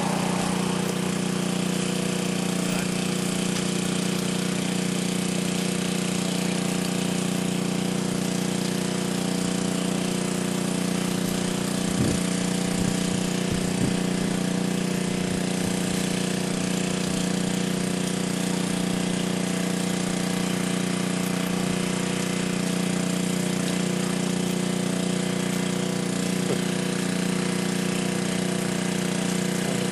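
An engine running steadily at idle, an even drone that does not change, with a few short knocks about twelve to fourteen seconds in.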